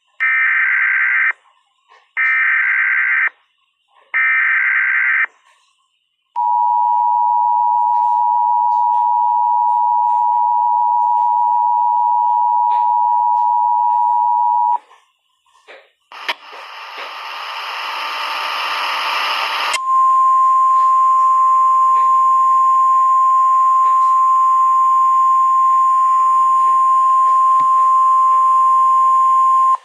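Mock Emergency Alert System tones: three short bursts of the buzzy SAME data header, then the two-tone attention signal held for about eight seconds. A few seconds of static-like noise swell up, then the single steady weather-radio alert tone holds for the last ten seconds.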